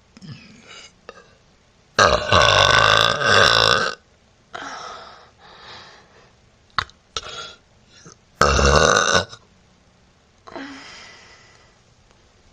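A woman burping loudly close to the microphone: one long burp about two seconds in that lasts nearly two seconds, and a shorter one later, with a few fainter short sounds between them.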